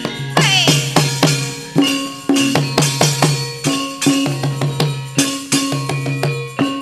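Javanese gamelan music: kendang hand drum strokes, some sliding down in pitch, over bronze gongs and metallophones struck in a brisk repeating pattern.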